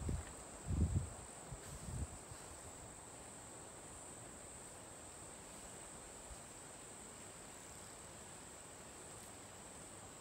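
Insects trilling in one steady, unbroken high-pitched tone, with a few footsteps in the first two seconds.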